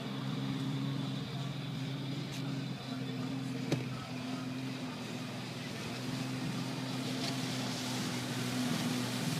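Kawasaki stand-up jet ski's two-stroke engine running with a steady drone that shifts a little in pitch as the craft carves across the water, heard at a distance. A sharp click comes about four seconds in, and a hiss grows near the end.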